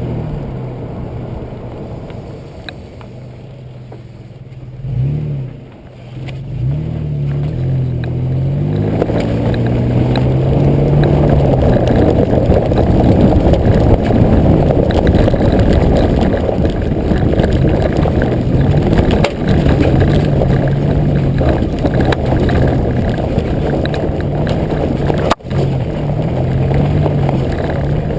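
2005 Nissan Xterra's 4.0-litre V6 driving off-road, heard from the rear bumper, its engine pitch rising and falling with the throttle. From about nine seconds in, a loud rough rumble of tyres and track noise covers the engine, with a brief dropout near the end.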